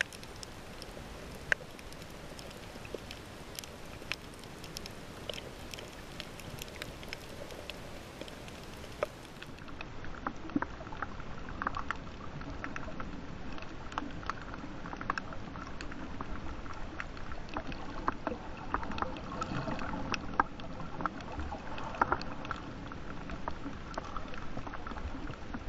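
Underwater ambience on a shallow coral reef, heard through the camera's waterproof housing: a steady hiss with many scattered sharp clicks and crackles, a little louder from about ten seconds in.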